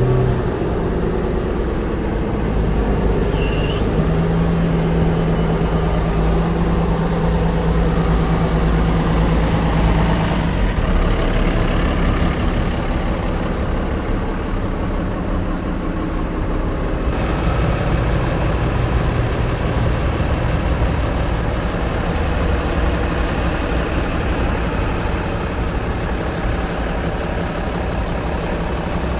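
Heavy diesel engine of a Komatsu HB365NLC hybrid excavator running steadily at idle-like speed, a continuous low hum that changes abruptly a few times.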